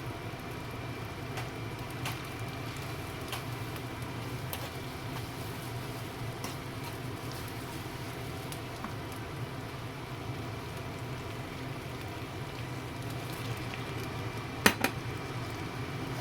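Food sizzling in a cooking pan, with faint scattered ticks and pops over a steady low hum. Two sharp clicks in quick succession near the end.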